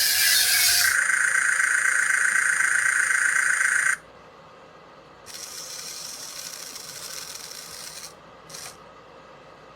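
Small electric gear motors of a mini remote-control excavator toy running with a steady high whine, cutting off suddenly about four seconds in. A quieter rubbing, whirring noise follows, with a short blip near the end.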